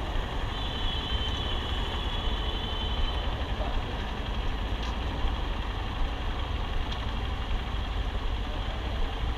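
Motorcycle engine idling steadily in stopped traffic, the Hero XPulse 200's single-cylinder engine ticking over. A thin high steady tone sounds for about two and a half seconds near the start.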